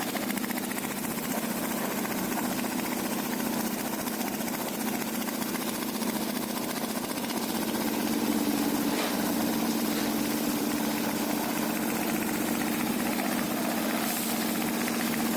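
Concrete mixer with attached ladder lift running steadily, its engine giving a continuous low drone under a constant mechanical clatter.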